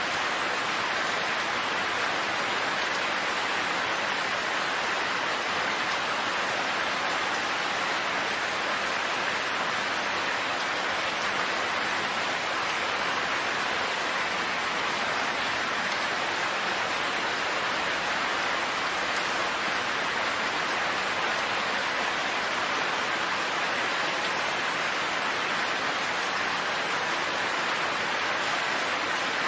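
Steady rain falling, an even hiss of drops with no pauses or thunder.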